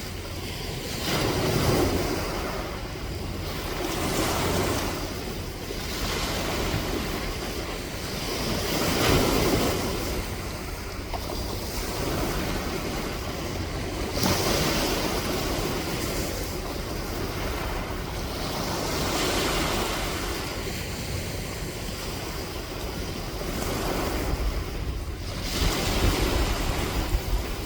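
Sea waves washing onto the shore, the rush swelling and easing every few seconds. A low wind rumble on the microphone runs underneath and grows stronger near the end.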